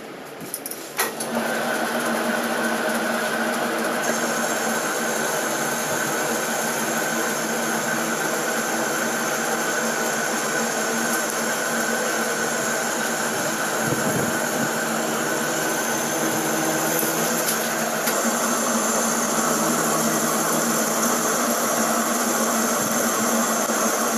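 Metal lathe starting with a click about a second in, then running steadily with a steady hum and whine while the turning tool cuts a V-belt groove into a pulley.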